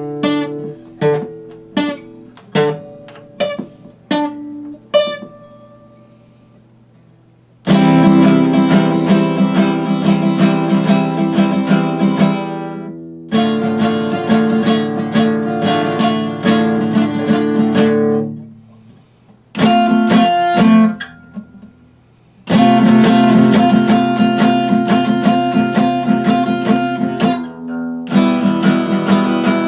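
Epiphone acoustic guitar being played: a handful of single plucked notes ringing out one by one, a pause of about two seconds, then fast strumming of chords that stops briefly a few times.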